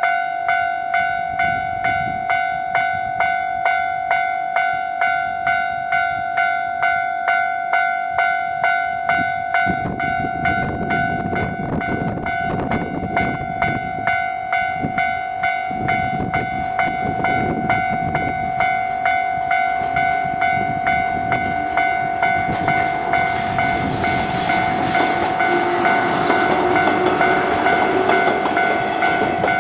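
Japanese level-crossing warning bell ringing in a steady, quick, repeating ding. From about ten seconds in, a train rumbles over the crossing with wheel clatter, growing louder toward the end.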